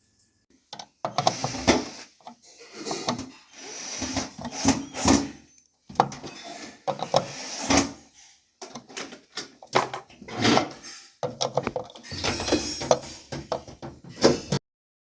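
Hard objects being handled: a series of knocks, scrapes and rattles in irregular clusters that stop shortly before the end.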